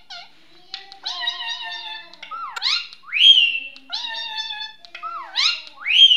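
Indian ringneck parakeet calling: held, wavering nasal notes, each followed by a whistle that dips down and swoops back up. The pattern comes twice, and the upward swoops are the loudest.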